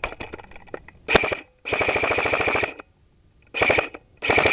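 Airsoft gun firing on full auto in four rapid bursts of shots, the longest lasting about a second. The shots are falling just short of the target.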